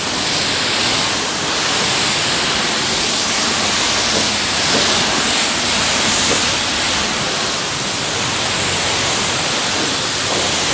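High-pressure rinse wand of a self-serve car wash spraying water onto a car's body panels: a loud, steady hiss of spray.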